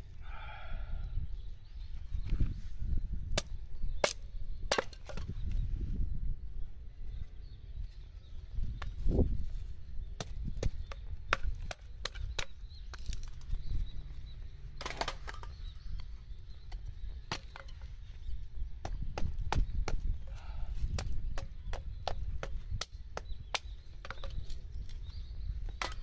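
Small hatchet splitting thin sticks of firewood into kindling: repeated sharp knocks and cracks of the blade on wood at irregular intervals, over a steady low rumble.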